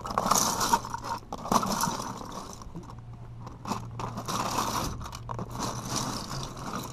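Loose LEGO bricks clattering and scraping against each other and the sides of a plastic storage tub as a hand rummages through them and shifts large baseplates. The clatter comes in repeated spurts and is loudest in the first couple of seconds.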